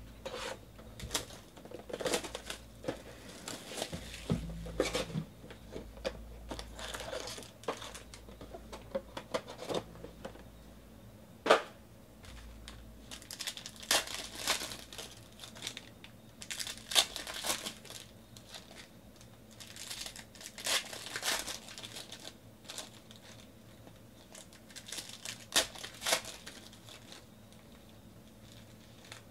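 A trading-card box and its foil card packs being opened by hand: wrappers torn and crinkled and cards handled, in short scattered bursts of rustling with one sharp snap a little before the middle.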